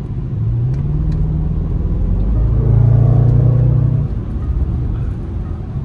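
Range Rover Sport SVR's supercharged 5.0-litre V8 accelerating, heard from inside the cabin. The engine note climbs in the first seconds, swells louder and deeper from about two seconds in, and eases off about four seconds in.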